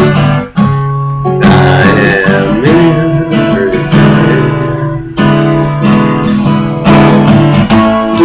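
Acoustic guitar strumming sustained chords, changing chord every second or two: the accompaniment between sung lines of a song.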